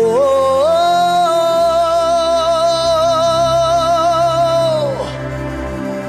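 A worship singer's wordless vocal that slides up into one long held note with vibrato over a sustained keyboard pad, falling away about five seconds in.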